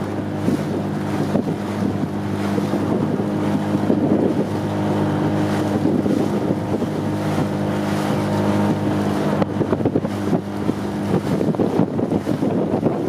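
A motorboat engine running at a steady pitch, with wind buffeting the microphone; the engine drone drops away near the end.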